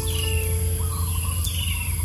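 Background music of held notes that step in pitch, with a short falling chirp repeating about every second and a half.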